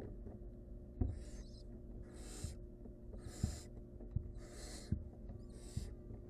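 Barn owls in a nest box giving rasping hiss calls, about five of them, each about half a second long and roughly a second apart, with dull thumps and scuffling from the birds moving on the box floor.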